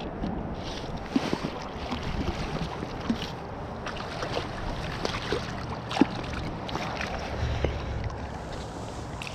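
River water rushing steadily, with wind buffeting the microphone and scattered small sharp ticks and knocks, the loudest about six seconds in.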